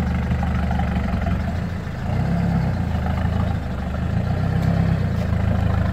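A modified Lada Niva off-roader's engine running at low revs with a steady low hum. Its note and level dip briefly about two seconds in, then pick up again.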